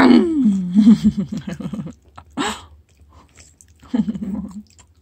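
A toddler laughing, a giggle that starts high, falls in pitch and breaks into quick short pulses, with a short vocal sound about four seconds in. Wet chewing noises come from a mouthful of soft dried persimmon.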